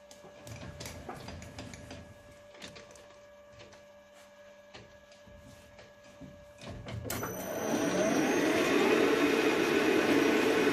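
Light clicks and knocks of tool handling on a metal lathe. About seven seconds in, the lathe switches on with a click and its spindle spins up, running steadily and loudly with a hiss.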